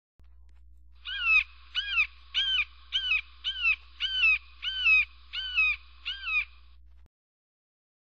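Red-shouldered hawk calling: a series of nine down-slurred screams, evenly spaced at a little under two a second. A faint low hum runs beneath and cuts off near the end.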